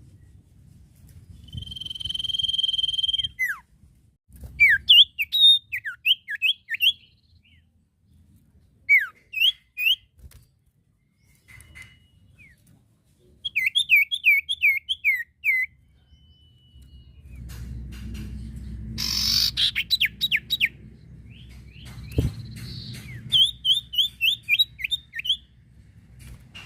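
Common iora (sirtu, cipoh) singing: one long steady whistle, then several phrases of quick, sharply sliding whistled notes. One harsh buzzing sweep comes about two-thirds of the way through. A low background rumble joins in the second half.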